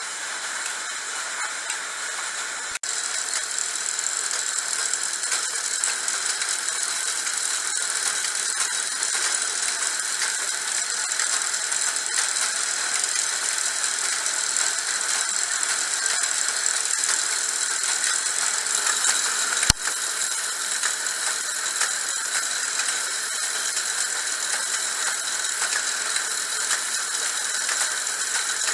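Rows of belt-driven screw-making machines running in a workshop: a steady, dense metallic clatter and rattle. A single sharp click sounds about two-thirds of the way through.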